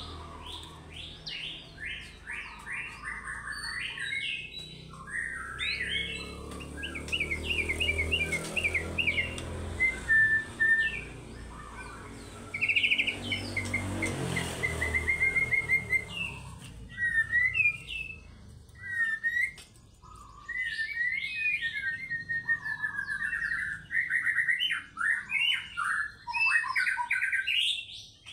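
White-rumped shama (murai batu) singing a long, varied song of clear whistles, rapid trills and fast chattering phrases, with a low hum underneath during the first half.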